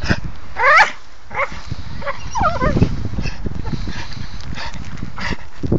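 American Staffordshire terrier whining in two high, wavering cries while it tugs at a tree branch held in its jaws. The dry twigs and brush crackle and rustle throughout.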